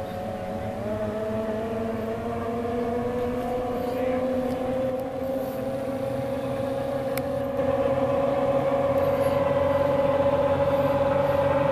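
Outboard engines of small racing hydroplanes running at speed, a steady whine whose pitch slowly climbs as it grows louder, stepping up in loudness about two-thirds of the way through.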